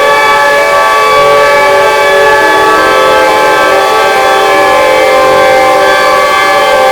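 EL-SYSTEMA v2 synthesizer playing a drone of layered chords held with reverb and delay: many steady tones sounding together, with the chord shifting about two and a half seconds in and again near the end.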